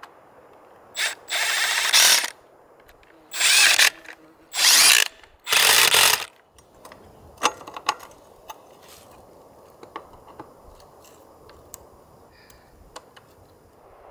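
A ratchet wrench cranked in five quick bursts over the first six seconds, followed by scattered light clicks and taps.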